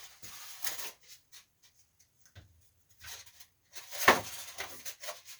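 Handling noise from working on a window air conditioner: rustling, scattered small clicks and one loud knock about four seconds in.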